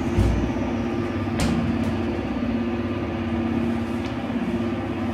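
Homemade carpet-beating machine running with a steady, fluttering motor hum, and a single sharp click about a second and a half in.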